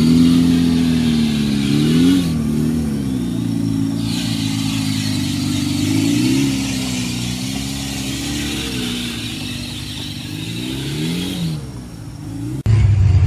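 Off-road 4x4 engine revving under load, its pitch climbing and dropping again several times. Near the end the sound cuts abruptly to a steadier, deeper engine drone.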